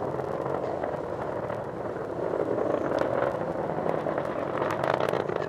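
Atlas V 401 rocket's RD-180 first-stage engine heard from the ground during ascent: a steady rumble with scattered sharp crackles, growing a little louder about halfway through.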